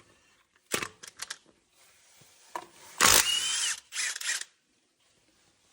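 Handheld power drill or driver run in short bursts: a few quick blips about a second in, then a longer whining run of under a second at about three seconds, and another short burst just after.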